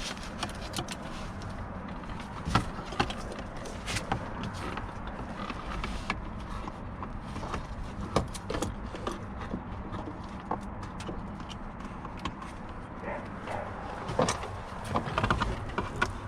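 Irregular clicks, taps and knocks of hand tools and plastic trim parts as car interior pieces are worked loose, over a steady low background noise.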